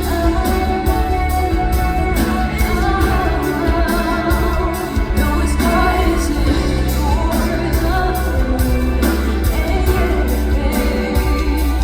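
Live pop song played loud through a concert hall's sound system: a woman singing over a steady drum beat and heavy bass.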